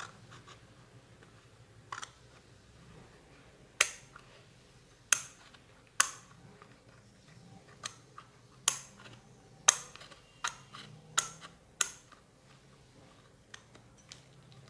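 Scissors snipping through a thin cardboard incense box: about a dozen sharp, irregular snips, loudest in the middle stretch, with two faint ones near the end.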